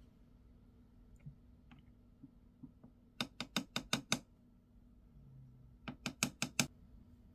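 A makeup brush tapped against a hard surface in two quick runs of sharp taps, about six and then about five, a couple of seconds apart, knocking loose powder off the bristles while applying eyeshadow.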